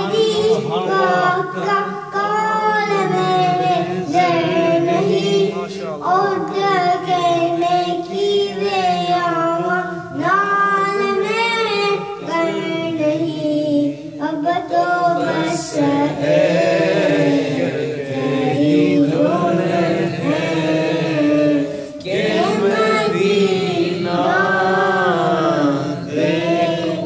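A young boy singing an Urdu naat, a devotional song in praise of the Prophet, into a microphone in a high voice. He holds long, wavering notes and pauses briefly for breath every few seconds.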